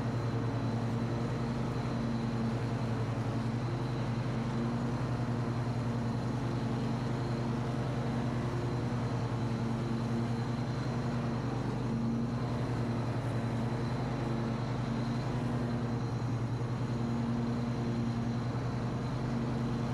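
Husqvarna Rider R214TC front-deck ride-on mower running at a steady engine speed with its cutting deck engaged, mowing grass. An even drone that does not change, with a faint high whine above it.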